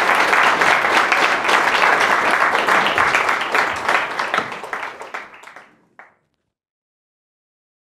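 Audience applauding: many people clapping together, the applause thinning out from about four seconds in and dying away by about six seconds.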